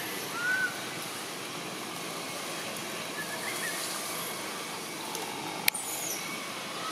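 Steady outdoor background hiss with a few short, faint chirps: one arched whistle-like chirp about half a second in and a couple more around the middle. A single sharp click near the end is the loudest sound.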